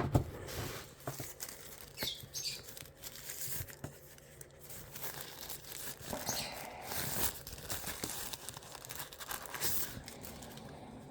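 Plastic packaging crinkling and rustling as it is handled, with scattered light clicks and taps, a sharper click right at the start.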